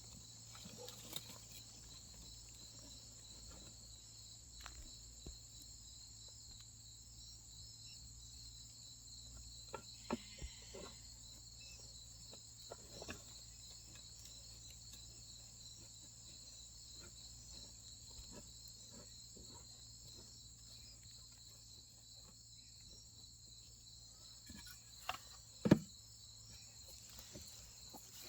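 Steady, faintly pulsing chorus of crickets and other insects. Scattered clicks and knocks break in now and then, the loudest a single sharp knock a couple of seconds before the end.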